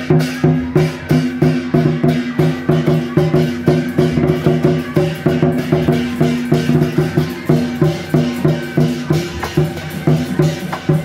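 Procession drum troupe (開路鼓, the road-opening drums that lead a temple procession) beating a fast, steady rhythm of strokes.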